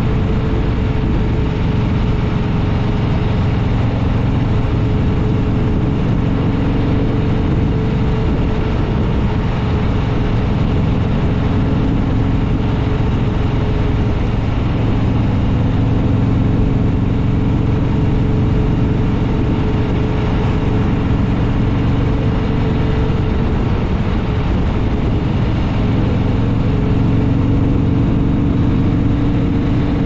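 Harley-Davidson Fat Boy Lo's V-twin engine running at a steady cruise, its pitch shifting only slightly, with a steady rush of noise around it.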